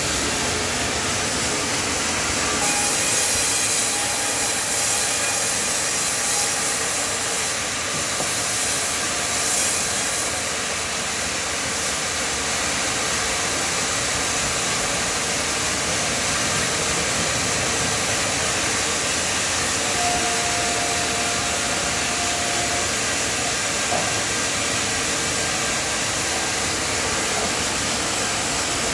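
Sawmill band saw running while a Japanese cypress (hinoki) log on the carriage is fed through it: a steady, loud mechanical din of the saw, carriage and cutting, with faint short whines now and then.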